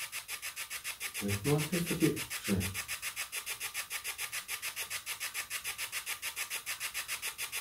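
Spirit box scanning through radio frequencies: a steady, rapid chopping of static, about eight pulses a second, with short voice-like snatches between about one and three seconds in.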